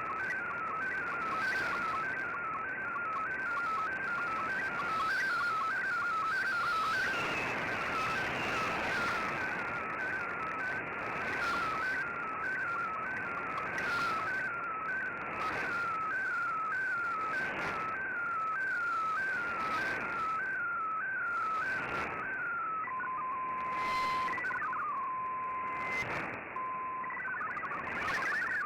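Slow-scan TV (SSTV) picture tones from a shortwave data broadcast, heard through a communications receiver over static hiss. A warbling tone repeats about one and a half times a second, once per scan line. About 23 seconds in it gives way to two steady tones, the header for the next picture, and the next image's busier scanning tones start near the end.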